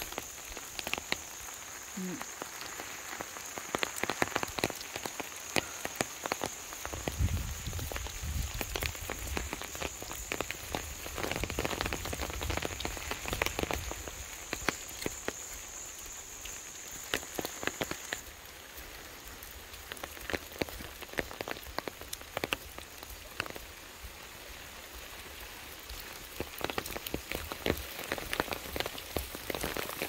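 Steady rain falling on the bush, with many small drop ticks. A high steady whine runs through the first two-thirds and then stops, and a low rumble sits under the middle stretch.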